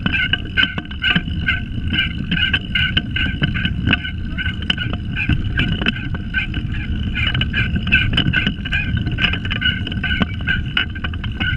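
Pedal go-kart rolling over tarmac: a steady rumble from its wheels on the asphalt, with rapid clicks and rattles from the kart's frame and drive throughout.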